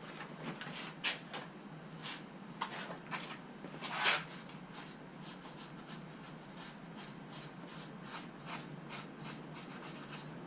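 Hand scrubbing of light rust off a car's wheel hub face: a run of short, irregular scratching strokes, one louder about four seconds in.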